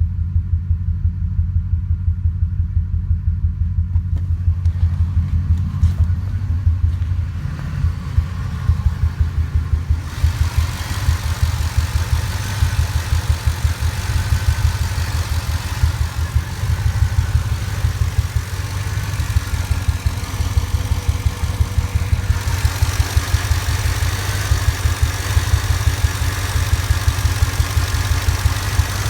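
Ford 5.4-litre two-valve V8 idling roughly, its low pulsing beat uneven, with a brighter hiss joining about ten seconds in. The rough idle throws no trouble codes; the owner suspects a bad mass airflow sensor.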